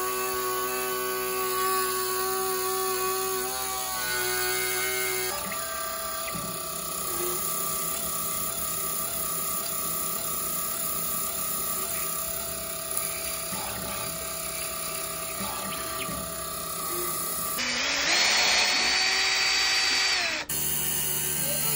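A Taig CNC mini mill's spindle runs while an end mill cuts a full-depth pass in aluminium stock, a steady machine whine. Near the end a handheld drill turning a tap spins up with a rising whine, holds, then slows down for about three seconds.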